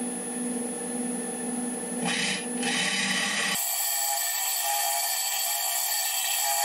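Wood lathe humming, then from about two seconds in a texturing tool rasps against the spinning sycamore, turning into a steady high buzzing rasp. The low hum drops away about three and a half seconds in.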